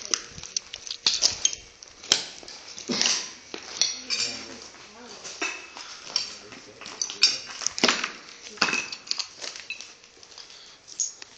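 A person panting hard, out of breath after running, in irregular breaths, with scattered clinks and knocks between them.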